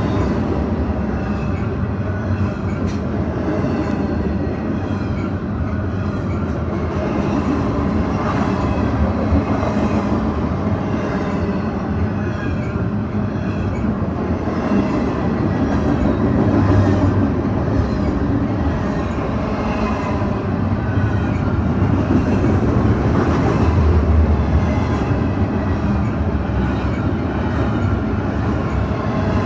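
Double-stack container cars of a Canadian Pacific freight train rolling past close by: a steady rumble of steel wheels on the rails that swells now and then.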